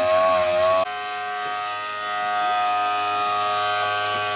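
Dremel rotary tool running with a steady high whine as it grinds and fettles the edge of a plastic motorcycle fairing piece. About a second in the whine changes abruptly and gets quieter, then carries on steady.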